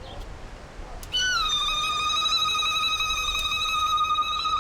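A woman's high-pitched ululation: one long call held at a steady pitch with a fast flutter, starting about a second in.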